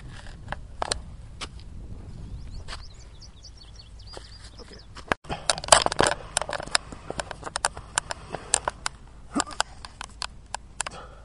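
A person crawling on an asphalt road: irregular taps, slaps and scrapes of hands and body on the pavement, busiest and loudest just after a short break about five seconds in. A few faint bird chirps come in around three seconds.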